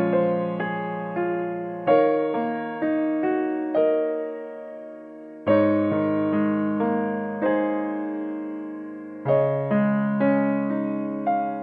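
Background piano music: slow chords struck every few seconds, with a melody of single notes between them.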